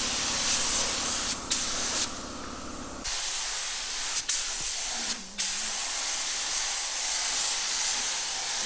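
Compressed-air gravity-feed spray gun spraying white sealer onto car body panels: a steady hiss of air and paint mist, cut by short pauses several times as the trigger is let off. A low hum runs under the first three seconds and stops abruptly.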